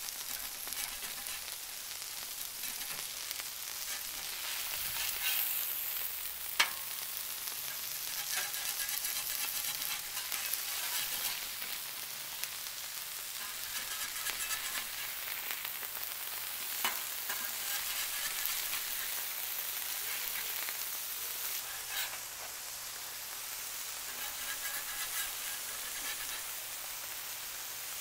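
80/20 ground-beef smash burger patties sizzling steadily on a hot Blackstone flat-top steel griddle. A few sharp clicks and scrapes come from a metal spatula on the steel as the patties are turned.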